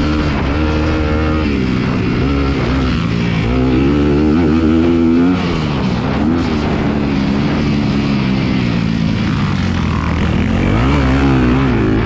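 A 2018 Honda CRF250R's single-cylinder four-stroke engine being ridden on a motocross track. The engine note rises and falls repeatedly as the throttle is opened and shut, with a drop about five seconds in and climbs again near the end.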